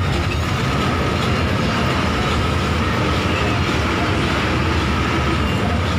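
A bus driving on the road, heard from on board: a loud, steady rumble of engine and tyres with a thin steady whine above it.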